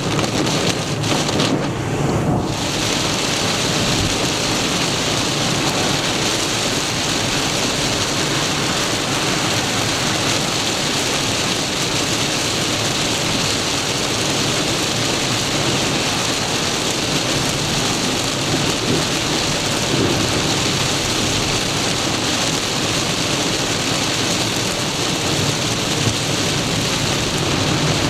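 Torrential rain beating on a moving car, a dense steady hiss with a few brief knocks in the first two seconds.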